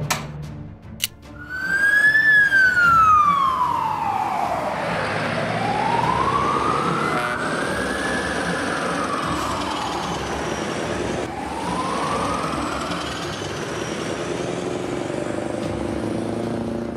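A fire engine's siren wailing: a single tone that sweeps slowly down and up in pitch, starting about a second and a half in, over the steady noise of the truck driving.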